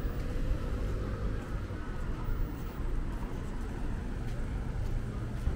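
Outdoor street ambience: a steady low rumble with faint distant voices.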